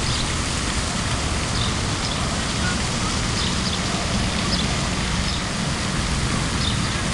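Steady outdoor rushing noise with a flickering low rumble, and a few faint, short high chirps now and then.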